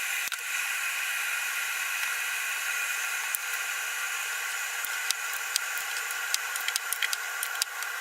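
Star San sanitiser solution draining out of a fermenter: a steady hiss with scattered small clicks and pops of foam, more of them in the second half.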